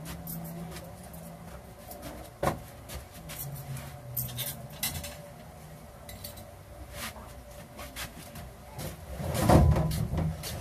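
Scattered knocks and clinks of objects being handled, with a sharp knock about two and a half seconds in, over a low steady hum. A louder low rumble swells and fades near the end.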